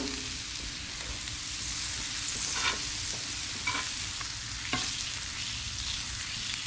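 Blackened fish fillets and melting butter sizzling steadily on a Blackstone flattop griddle. A metal spatula scrapes or taps the steel plate a few times around the middle as it pushes the butter.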